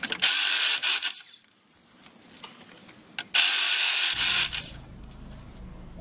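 Corded rotary hammer driving a large twist bit into a steel bar in two loud bursts, each a little over a second long, with a quieter pause between them. The drill is run at reduced power through a speed regulator.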